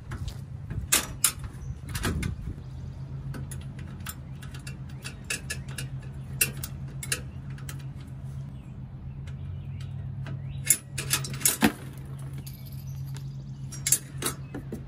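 Metal bracket and fasteners being handled and fitted under a car's front end: irregular light clinks and knocks, a few sharper ones about two-thirds of the way through and near the end. A steady low hum runs underneath.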